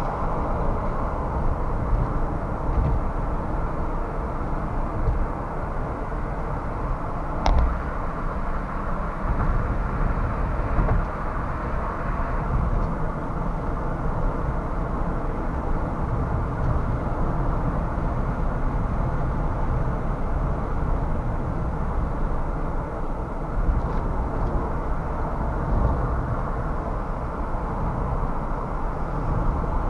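Car driving in city traffic: a steady rumble of engine and tyre noise, with one sharp click about seven and a half seconds in.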